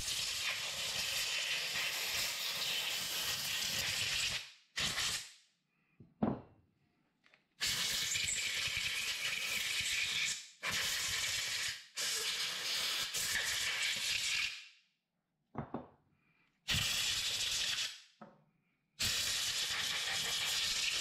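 Compressed-air blow gun blowing clean the parts of a Ducati belt-drive oil pump, first the pump cover plate, then the small drive gear. There are about six blasts of air, each starting and stopping abruptly, the longest about four seconds, with short pauses between them.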